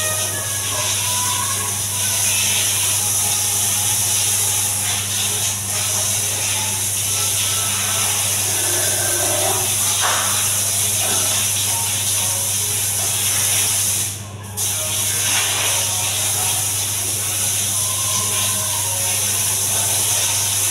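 Water spraying from a handheld bidet sprayer onto a ceramic tile floor, rinsing off suds: a steady hiss that breaks off briefly about two-thirds of the way through.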